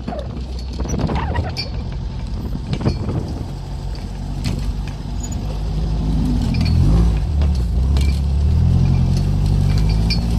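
Beach buggy's engine running as it drives, with knocks and rattles over the ride; about six seconds in the engine note shifts and gets louder as it pulls harder.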